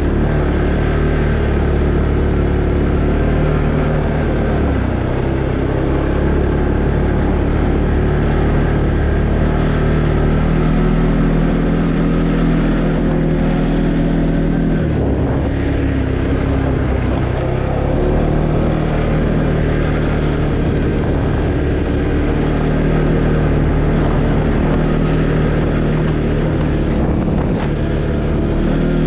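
Arctic Cat Alterra 700 ATV's single-cylinder engine running while riding, its pitch stepping up and down several times with the throttle and load.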